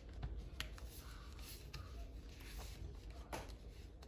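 Paper worksheets rustling as they are handled on the rings of a ring binder, with a few light clicks and taps, the sharpest about three seconds in.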